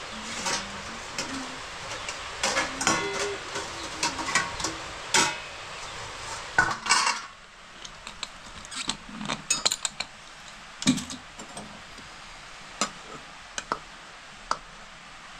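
Metal dishes, cups and pots clinking and clattering as they are handled and set down, with some clinks ringing briefly. After about seven seconds the clatter thins to a few light knocks, like a spatula tapping a pot.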